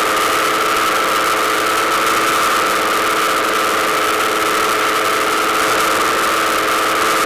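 Rieju RS2 Matrix Pro motorcycle engine idling steadily at a constant pitch.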